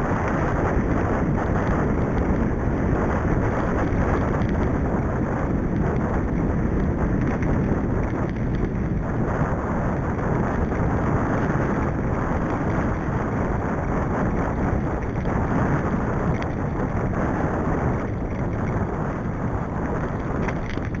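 Wind rushing over the microphone of a camera on a moving mountain bike, mixed with tyre rumble on a gravel track. It is steady and eases slightly near the end as the bike slows.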